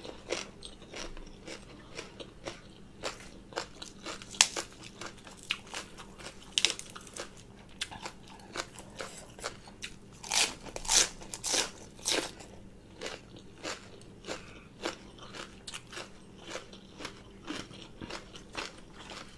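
Chewing and crunching of a mouthful of food throughout. About ten seconds in comes a louder run of crisp crunches as a fresh lettuce leaf is bitten into and chewed.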